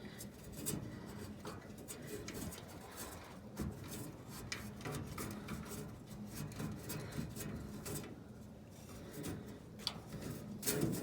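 Faint scattered clicks and rubbing of a screw being tightened by hand to mount a replacement gas dryer igniter.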